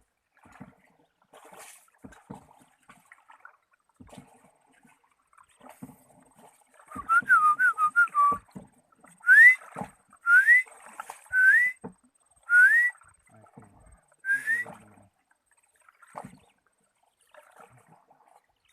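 Whistling: a quick warbling run of short notes, then five short rising whistles about a second apart.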